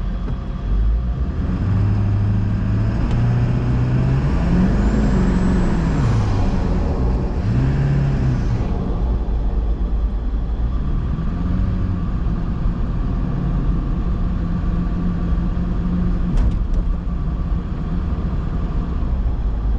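1999 Ford F-350's 7.3 L Powerstroke turbo-diesel V8 under hard acceleration: the revs climb, then rise and fall twice in quick succession as a rear wheel spins and breaks traction on the ice, with a high whistle near the first peak, before settling into a steady cruise.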